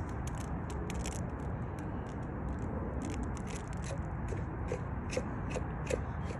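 Steady low background noise with faint, irregular scratchy clicks, a few each second.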